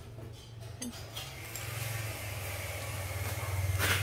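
Steel round shafts and a metal vernier caliper clinking and rattling as they are handled, with one sharper clink near the end, over a low steady hum.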